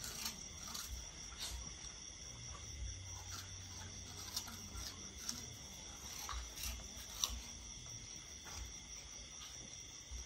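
Puppies moving about and eating small treats off a tiled floor: scattered light clicks and taps of claws and mouths on tile, the sharpest about seven seconds in, over a steady high-pitched chirring.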